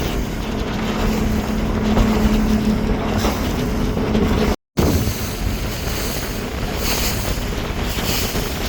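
Motorboat running under way: a steady engine hum under rushing water and wind buffeting the microphone. The sound drops out for a moment about halfway through, then carries on with splashes of spray near the end.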